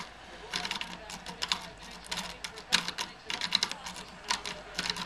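Metal lock-picking rake scrubbed rapidly in a pin tumbler lock, giving irregular clusters of fast scratchy clicks as it rattles over the pins.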